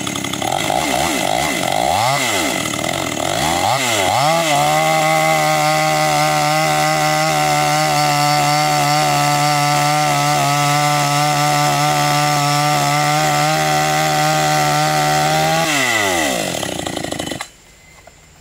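Two-stroke petrol chainsaw revved up twice, then held at full throttle for about eleven seconds while cutting through a log, before the revs fall back. The sound cuts off abruptly near the end.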